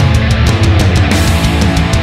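Loud heavy-metal style background music with a fast, steady drum beat.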